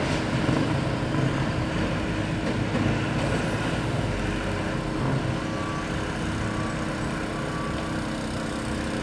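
Heavy diesel engines running steadily, from a city bus and a backhoe, mixed with street traffic: a continuous low engine hum with no sharp events.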